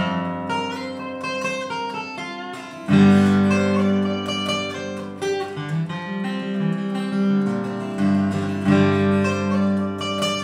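Solo steel-string dreadnought acoustic guitar playing a bluegrass instrumental: a continuous stream of picked notes and chords, with a louder accented chord about three seconds in.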